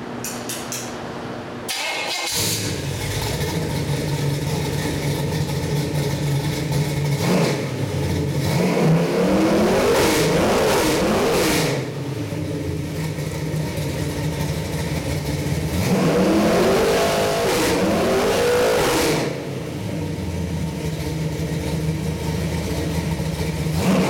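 Chevy 383 stroker small-block V8 with a Holley carburetor fires up about two seconds in and runs at a steady idle on the test stand. It is revved twice by hand at the carburetor throttle, each rev rising and falling over three or four seconds.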